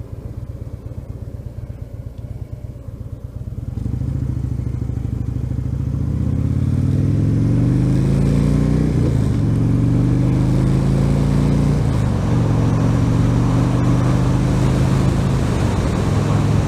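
Harley-Davidson Dyna Switchback's V-twin engine ticking over with a lumpy, pulsing beat, then pulling away about four seconds in and accelerating through the gears, the pitch rising and dropping at each shift, twice, before settling into a steady cruise at about 50 mph.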